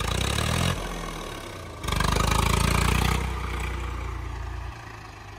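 Tractor diesel engine surging twice, briefly at first and then for about a second longer, before easing back to a steady low running note.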